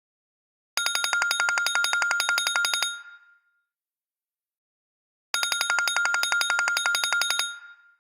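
Apple ringtone imitating an old electromechanical telephone bell: two rings, each about two seconds of rapid bell strikes, with a pause between.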